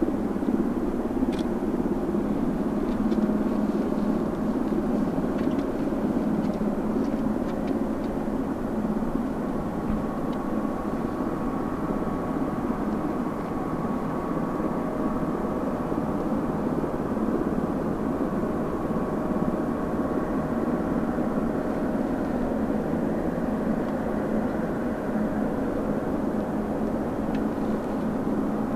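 Jet aircraft engines running steadily: a broad, even rumble with a faint steady whine over it.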